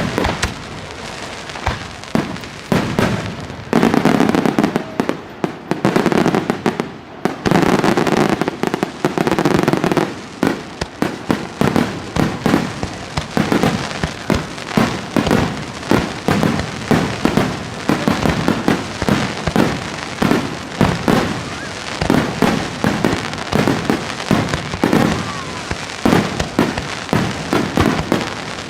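Starmine fireworks display: shells launching and bursting in rapid volleys, a dense series of bangs several a second, with two heavier stretches of near-continuous bursts about four and eight seconds in.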